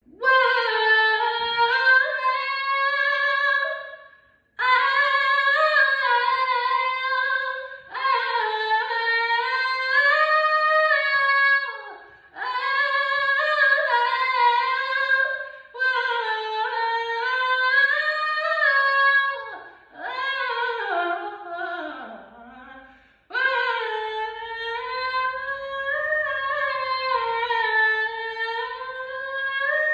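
A woman singing alone without accompaniment, in long held phrases of about four seconds with short breaks between them; one phrase near the middle slides down in pitch.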